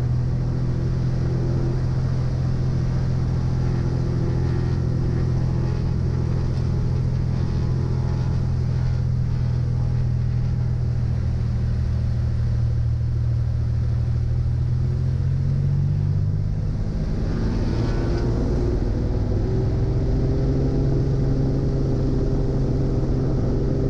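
Turbocharged six-cylinder engine of a Cessna Turbo 210 at full takeoff power, a steady low drone as the plane accelerates down the runway on its takeoff roll. The tone shifts slightly about two-thirds of the way through.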